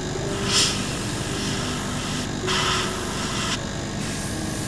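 Double-action airbrush spraying thinned neutral gray in fine, light passes: a short hiss about half a second in, then a longer hiss of about a second from about two and a half seconds, over a steady background drone.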